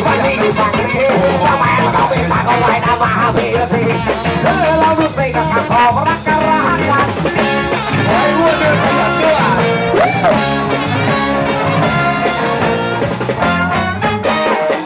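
Live band playing with trumpet and trombone, electric guitars, bass and drum kit, and a singer on microphone.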